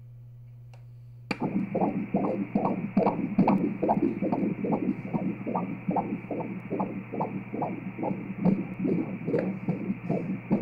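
Fetal heartbeat heard through an obstetric ultrasound Doppler. About a second in, fast, evenly spaced whooshing pulses start suddenly, a little over two a second. It is a strong heartbeat of about 140 beats a minute.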